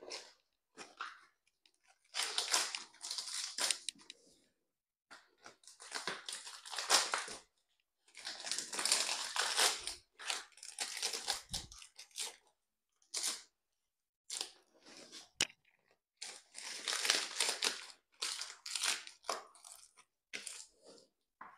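Fresh banana leaves rustling and crinkling in irregular bursts as they are folded and pressed down into a steel pot to cover the food and seal in the steam.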